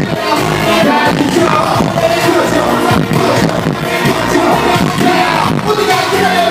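Live concert music: a vocalist over a loud band or backing track with a steady drum beat.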